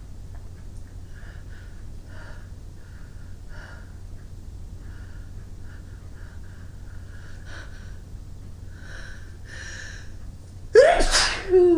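A woman sneezes once, loudly, near the end: a sudden voiced sneeze whose pitch rises and then drops. Before it come only faint, short breath sounds.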